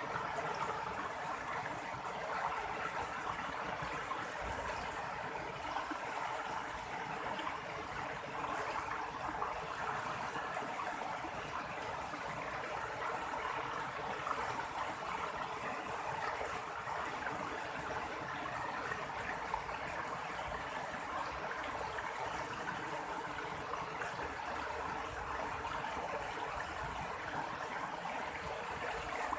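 River water flowing steadily over stones, an even rushing with small splashes and gurgles.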